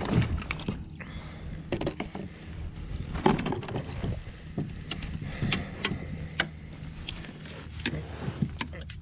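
Irregular knocks and clicks of gear being handled and bumped against the hull of a plastic fishing kayak, over a steady low hum that stops near the end.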